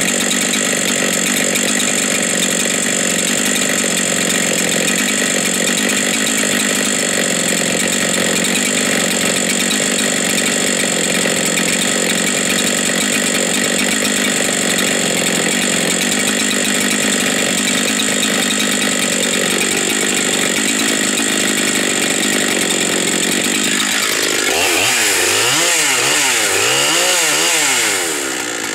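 Husqvarna 372 XPW two-stroke chainsaw running steadily at idle, then revved up and down several times near the end, its pitch rising and falling with each blip of the throttle.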